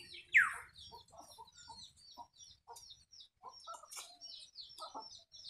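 Chickens clucking in short, scattered notes. A loud call falls in pitch about a third of a second in, and quick high chirps run throughout.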